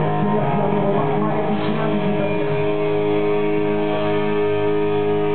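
Live rock band playing, its electric guitars holding long, ringing chords.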